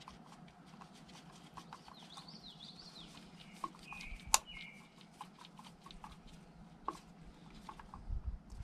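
Small metallic clicks and taps of a screwdriver and ignition parts as a new condenser is fitted and screwed down on a MerCruiser engine's points distributor. One sharp click comes about four seconds in.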